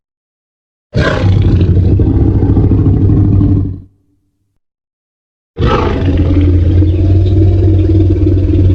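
Tyrannosaurus rex roar sound effect played twice: two deep, rumbling roars of about three seconds each, with a pause of silence between them.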